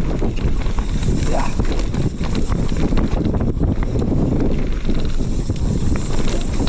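Downhill mountain bike descending a rough dirt trail at speed: a steady rush of wind on the microphone with constant rattling and clattering from the bike's chain, suspension and tyres over roots and bumps. A brief rising squeak comes about a second and a half in.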